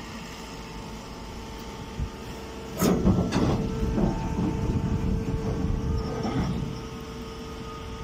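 Hydraulic straw baler humming steadily from its motor and pump. About three seconds in a loud clatter sets off several seconds of rumbling and scraping as the bagged straw bale comes out of the baling chamber, easing off near the end.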